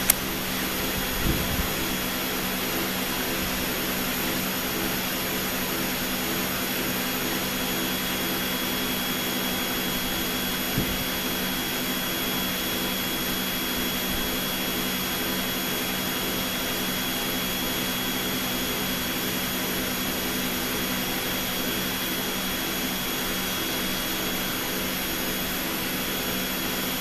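Steady whooshing hum of a laboratory blower, with a faint high whine held over it. Two soft knocks sound, one about a second in and another about eleven seconds in.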